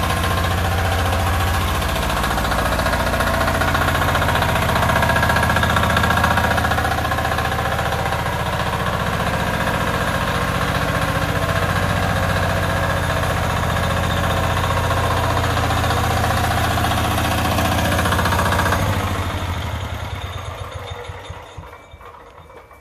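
Weima single-cylinder diesel engine of a Motor Sich MB-9DE walk-behind tractor running steadily as the tractor is driven. About 19 seconds in the engine is shut off and runs down, fading away over two or three seconds.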